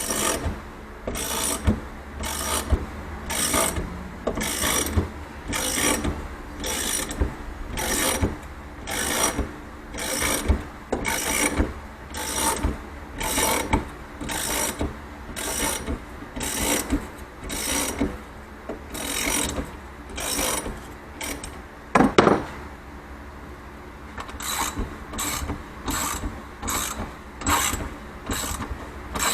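Ratchet wrench clicking as it cranks the threaded rod of a coil spring compressor on a shock absorber, in a steady stroke about once a second. There is one loud knock about two-thirds of the way through, then a brief pause, and the strokes resume faster and shorter.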